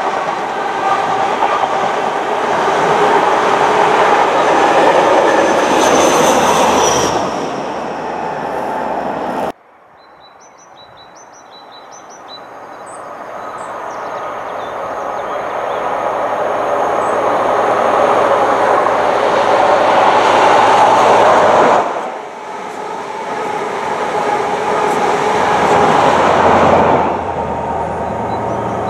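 A diesel test train hauled by HST power cars passing at speed: engine noise and the clatter of wheels on rail. After a sudden cut, a second pass is heard: the train is faint at first, then grows steadily louder as it approaches, goes by, and fades away.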